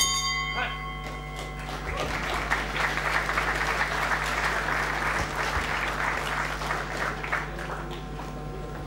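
Boxing ring bell struck once, ringing out and fading over about a second and a half to mark the end of the round. The arena crowd then applauds for several seconds.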